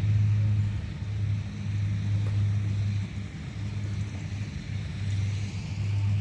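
A steady low mechanical hum with a fainter overtone, swelling and dipping slightly in level.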